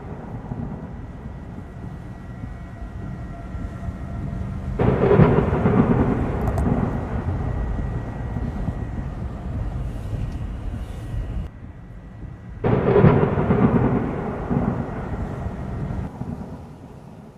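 Severe-storm rumble: a dense, low rushing and rumbling noise of wind and thunder. It swells sharply about five seconds in, drops off suddenly at about eleven and a half seconds, swells again a second later, then fades near the end.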